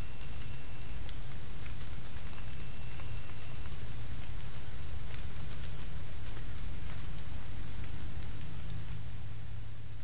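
Chorus of insects, crickets or katydids, a steady high-pitched shrilling with a fine rapid pulse, over a low steady rumble.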